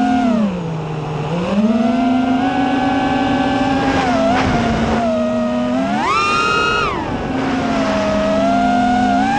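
Electric motors and propellers of a small drone whining, heard from its onboard camera, the pitch rising and falling with the throttle: a dip early, a sharp climb about six seconds in that falls back a second later, and another climb near the end.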